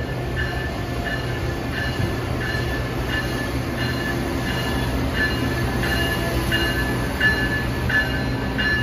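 Amtrak train hauled by a Siemens ACS-64 electric locomotive running through on a far track: a steady rumble of wheels on rail, with short high squeals repeating about twice a second.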